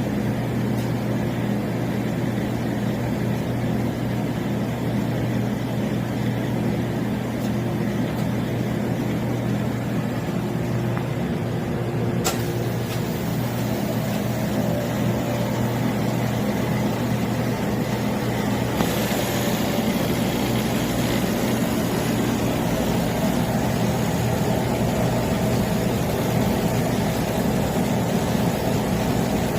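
Refrigeration compressor of an upright commercial freezer running with a steady hum. A sharp click comes about twelve seconds in, and a higher hiss joins in about nineteen seconds in.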